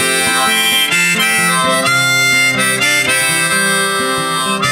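Instrumental break in a song: a harmonica playing a melody over guitar, with the notes changing every fraction of a second.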